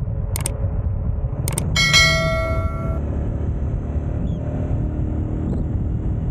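Steady low rumble of wind buffeting the microphone while moving along the road. Two sharp clicks come early, and then a bright bell-like ding rings for about a second before cutting off abruptly.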